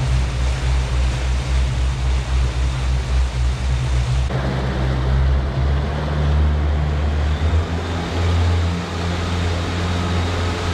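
Fishing boat's engine running steadily under way, with a low hum beneath a rush of wind and water that gets noisier about four seconds in.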